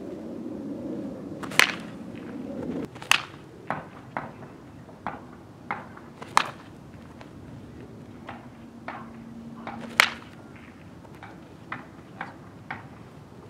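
A baseball bat hitting pitched balls in batting practice: sharp cracks at irregular intervals, the loudest about ten seconds in, with fainter clicks between.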